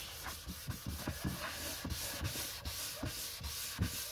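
Cloth rubbed briskly over the inlaid wooden lid of a keepsake box, working in an oil finish, in quick, repeated back-and-forth strokes.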